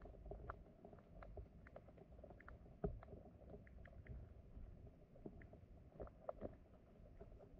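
Faint underwater sound of flowing water: a low rumble with scattered small clicks and ticks, the loudest a single knock about three seconds in.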